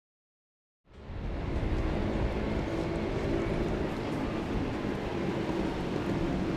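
Silence for about a second, then a steady city-street noise of traffic with a low rumble.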